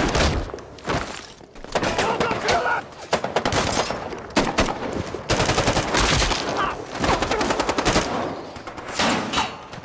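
Heavy exchange of automatic rifle fire: rapid shots in long overlapping bursts, with only brief lulls.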